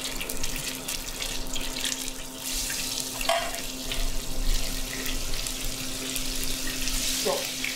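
Zander (pike-perch) fillets sizzling in hot oil in a frying pan, a steady crackling hiss, over a steady low hum.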